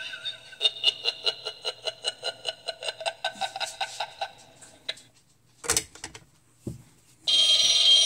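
Animated Halloween rotary phone toy sounding electronically through its speaker: a fast pulsing trill of about six pulses a second that fades out, then two short clacks as the handset is set back on its cradle, and near the end a loud, steady electronic ring starting up.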